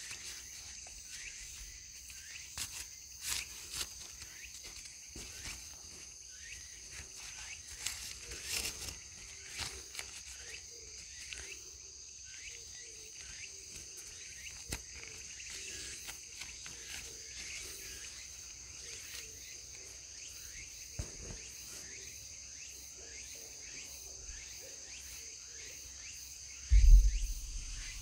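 Night insect chorus of crickets and other singing insects, a steady high-pitched trill, with scattered sharp clicks. Near the end there is a single heavy low thump, the loudest sound.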